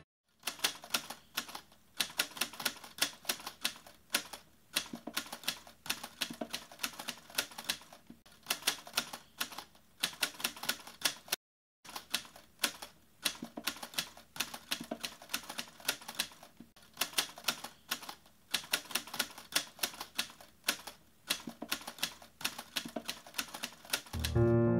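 Typewriter sound effect: rapid, irregular key clacks as text is typed out, with a short pause about halfway through before the typing starts again.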